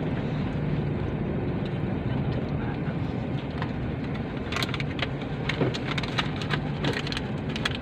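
Steady low running hum inside a parked car, with a few light clicks and taps in the second half.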